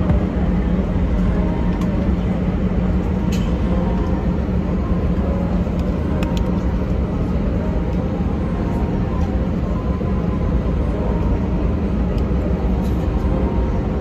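Steady cabin noise inside an Airbus A319 taxiing: a constant low rumble and hum from the jet engines at low thrust, with a few faint clicks.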